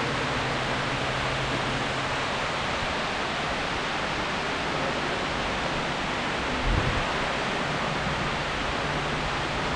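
Steady rushing background noise with a faint low hum underneath, and a brief low thump about seven seconds in.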